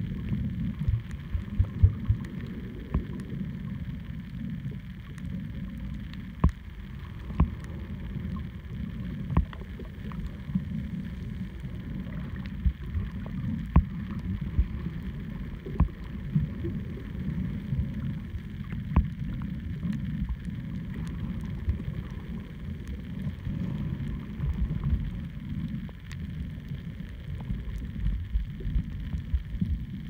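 Underwater sound picked up by a camera held below the surface while snorkeling: a steady muffled rumble of moving water, with scattered sharp clicks and pops.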